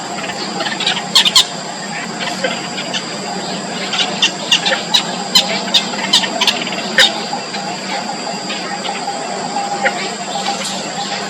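Four-day-old nestlings cheeping in many short, sharp, high-pitched chirps, coming in clusters. Behind them is a steady high-pitched tone.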